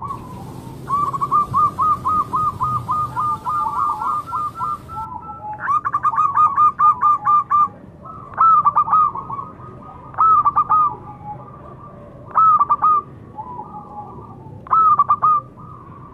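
Zebra dove cooing: a rapid run of short staccato notes for the first few seconds, then four separate short cooing phrases about two seconds apart, with fainter notes in between.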